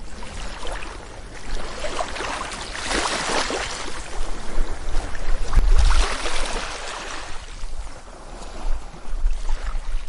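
Sea waves washing on the shore, with wind buffeting the microphone; the wash swells about three seconds in and again, loudest, around five to six seconds in.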